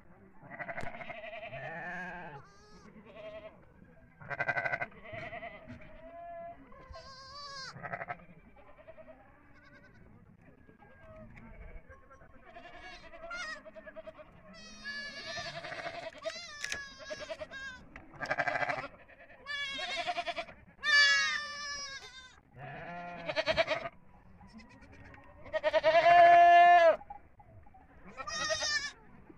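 Goat kids bleating over and over, with many separate wavering calls one after another. The loudest come about two-thirds of the way in and again near the end.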